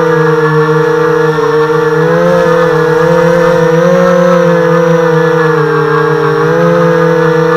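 HobbyKing FPV250 quadcopter's brushless motors and propellers droning loudly, heard from its onboard camera. The whine holds steady, its pitch rising and falling a little as the throttle changes.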